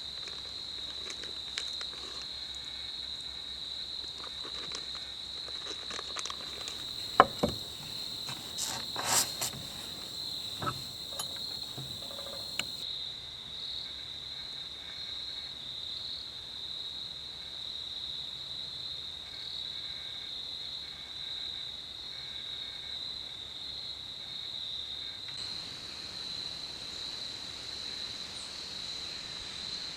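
Crickets chirping in a steady, high-pitched chorus, with a few knocks and clicks between about 7 and 13 seconds in, the sharpest about 7 seconds in.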